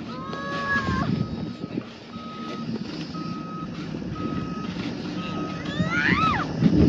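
Reversing alarm of a snow-clearing vehicle beeping at an even pace, about seven short beeps, over a low engine rumble. A rising whine comes in near the end.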